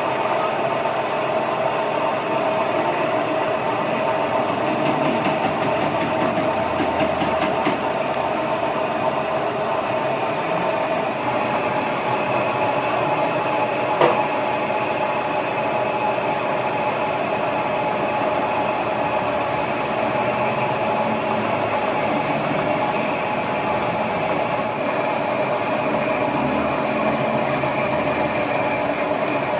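Steady workshop machinery running with a constant metallic tone, with a single sharp knock about halfway through.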